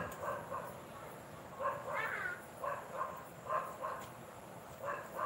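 A single sharp smack of a badminton racket hitting the shuttlecock at the very start, then a dog yapping again and again, mostly two short yips at a time.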